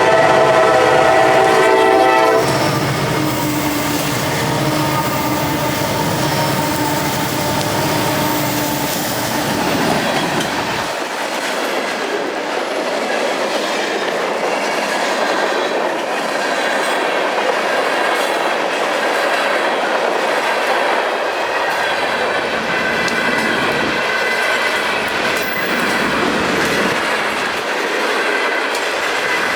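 Freight locomotive air horn blowing a chord, cutting off about two seconds in, then a freight train rolling past: steady loud wheel-on-rail noise with the clickety-clack of the cars.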